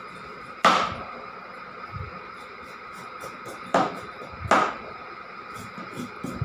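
A kitchen knife chopping through a raw carrot: three sharp chops, one about a second in and two close together past the middle, with lighter knife clicks between.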